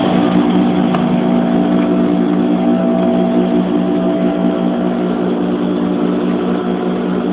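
Sewing machine motor running with a steady hum.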